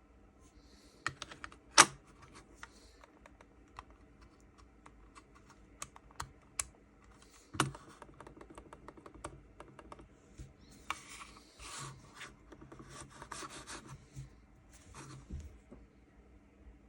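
Logitech Pebble silent mouse being clicked and handled: many light, muffled clicks with a few sharper taps, and stretches of rubbing as it slides over the desk.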